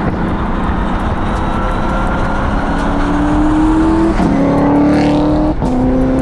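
Twin-turbocharged and supercharged Ford Coyote V8 accelerating under load, heard from inside the car. The engine note climbs, drops sharply about four seconds in and again near the end, the quick upshifts of its paddle-shifted MCO sequential gearbox.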